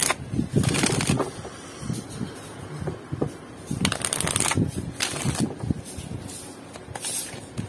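A deck of oracle cards being shuffled by hand, the two halves riffled together, in several short bursts.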